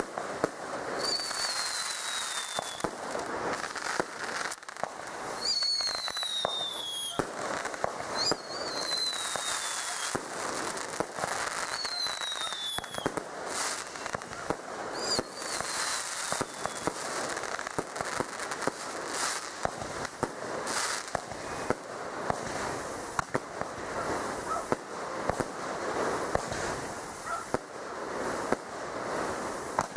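Fireworks going off: a rapid string of bangs and crackling pops, with several whistles that fall in pitch in the first half.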